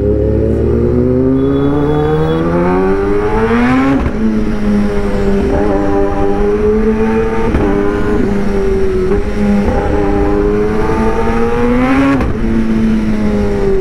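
Sport motorcycle engine accelerating hard, its pitch climbing until an upshift about four seconds in. It then holds at fairly steady revs, climbs again, and shifts up once more near the end.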